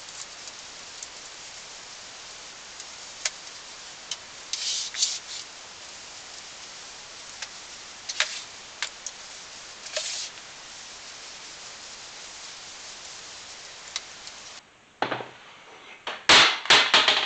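Floor mop rubbing and swishing across the floor, with a few sharper scrapes along the way. Near the end come several loud clatters as the mop falls over.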